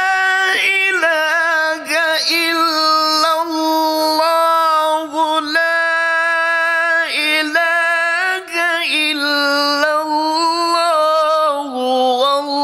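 A man reciting the Quran in a long-drawn melodic chant. He holds sustained, wavering notes with a few short breaks between phrases, and the pitch steps down near the end.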